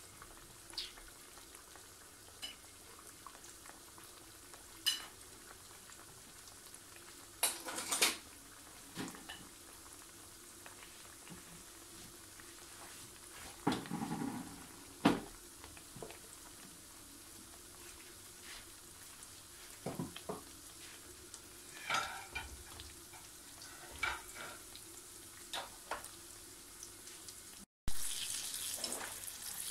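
Filled pastries deep-frying in hot oil in a frying pan: a steady faint sizzle with sharp crackles every few seconds, louder near the end.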